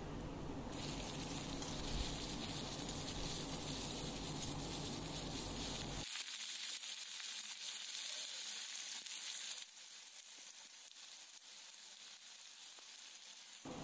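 Chopped onions sizzling as they fry in hot oil with cumin and whole spices in a stainless steel kadai. The sizzle is steady, then gets quieter about six seconds in and again near ten seconds.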